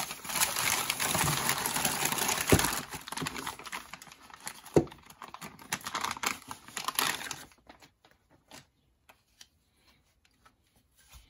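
Brown packing paper and then a clear plastic bag crinkling and rustling as they are handled, with two sharp knocks in the middle. After about seven and a half seconds the rustling stops, leaving only scattered light ticks.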